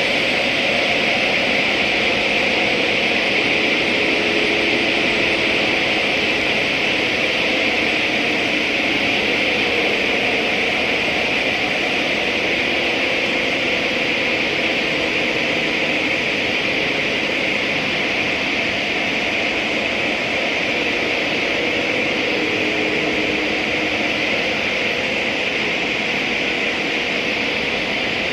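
Glass-melting furnace running: a loud, steady roar and hiss, with faint steady hums underneath.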